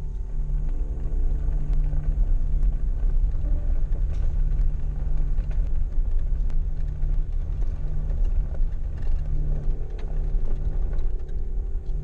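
Jeep driving slowly on a dirt road, heard from inside the cab: a steady low rumble of engine and tyres, with a few sharp rattles and clicks.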